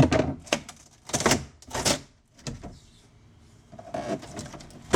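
Sharp cracks and snaps as a fiberglass-and-polyester resin panel is pried by hand away from a polyethylene kayak hull, the resin letting go of the plastic. Four cracks in the first two seconds, then quieter handling.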